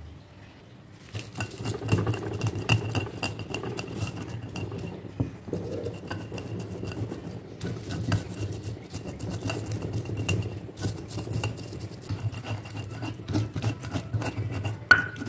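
Stone pestle crushing and grinding shallots, garlic and spices on a flat stone mortar: a continuous run of gritty scrapes and knocks starting about a second in. A single ringing clink sounds near the end.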